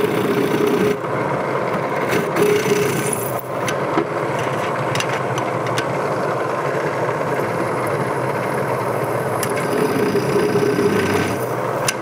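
Drill press running steadily while a center drill cuts starter holes in a steel bicycle frame tube for water bottle bosses.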